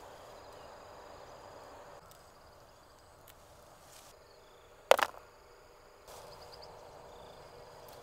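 Insects calling outdoors in steady high-pitched tones, with a few short chirps. One brief sharp sound about five seconds in, much louder than the insects.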